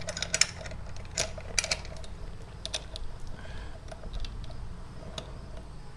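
Irregular light metallic clicks and taps as a DID chain riveting tool is handled and fitted around a motorcycle chain.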